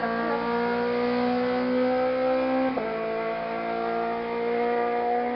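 Rally car engine accelerating hard as the car drives away, its pitch climbing through the revs, with a quick upshift about three seconds in before it climbs again.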